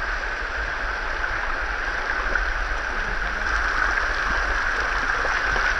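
Hot-spring spa massage jets: heavy streams of water pouring down and splashing, a steady rush with no break.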